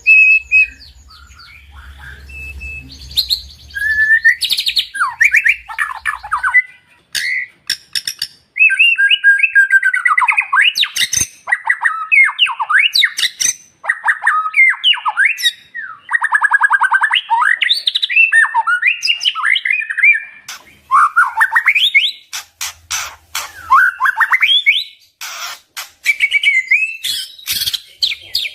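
White-rumped shama (murai batu) singing a long, varied song of gliding whistled phrases, rapid trills and sharp, harsh notes. It is quieter for the first few seconds, then loud.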